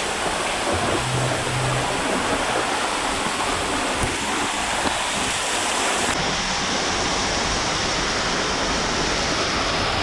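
Waterfall pouring down inside a narrow rock tunnel, a steady loud rush of falling water splashing onto the rocks and stream.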